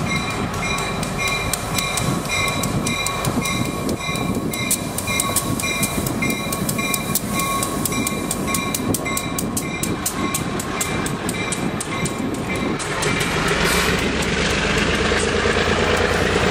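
Cuyahoga Valley Scenic Railroad diesel passenger train arriving, with a warning bell ringing in steady, even strokes over the train's rumble. About thirteen seconds in the bell stops, and the louder rolling noise of the coaches' wheels on the rails takes over as the cars pass close by.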